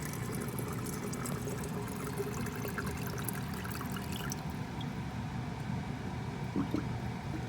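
Dishwasher running, with water rushing and trickling steadily over a low hum; the test run of its drain line into a newly installed garbage disposal.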